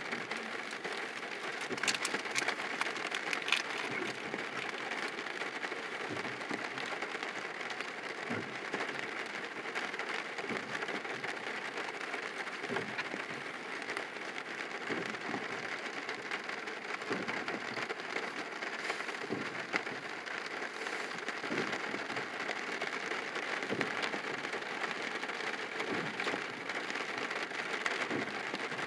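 Steady rain falling on a car's roof and windshield, heard from inside the cabin, with scattered sharp ticks of drops.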